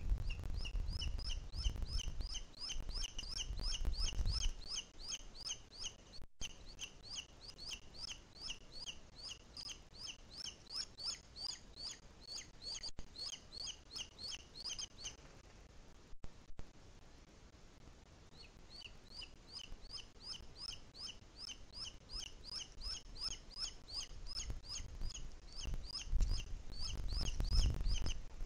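Booted eagle calling: a fast, even run of high, sharp notes, about four a second. The notes break off for about three seconds partway through, then resume. A low wind rumble sits under the start and the end.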